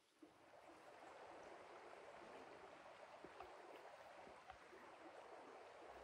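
Faint, steady rush of flowing creek water.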